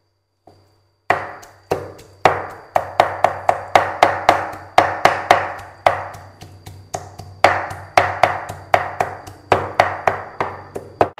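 Cleaver chopping boiled pig windpipe and cartilage on a thick round wooden chopping board: a quick run of sharp knocks, about three a second, starting about a second in.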